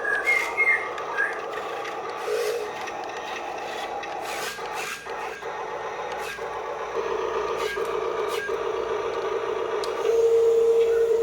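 Remote-control excavator's electric motors whining steadily, with scraping and scattered clicks as the model works. The whine grows louder about ten seconds in.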